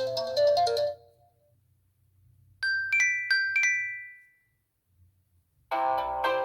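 iPhone 4 ringtones played one after another: a marimba-like melody ends about a second in, then a short chime of four quick bright notes rings out, and a new, busier ringtone starts near the end.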